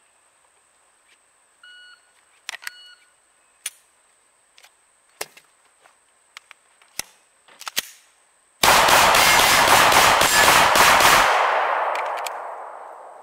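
An electronic shot timer beeps to start, then a 9mm Glock 17-pattern pistol fires a string of single shots about a second apart, broken by a magazine reload. About two-thirds of the way in the sound turns into nearly three seconds of loud, distorted noise with shots inside it, which then dies away slowly.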